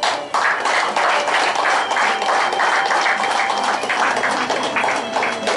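Audience applauding: many hands clapping in a dense, steady patter that breaks out suddenly just after the start.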